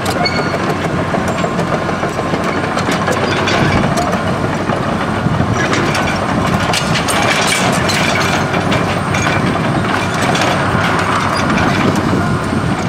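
2005 Hitachi Zaxis ZX200LC excavator travelling on its steel tracks: its Isuzu six-cylinder turbo diesel runs steadily under load while the track links and grouser pads clank and rattle irregularly.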